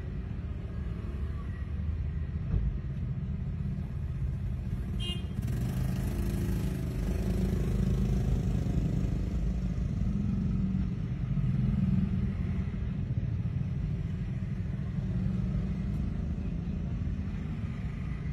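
Steady low rumble of street traffic that swells in the middle and eases off again, as of vehicles passing, with a brief high-pitched sound about five seconds in.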